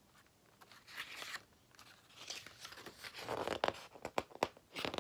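Soft rustling and crackling of a paper picture book's pages being handled and turned, with a few sharp clicks in the middle.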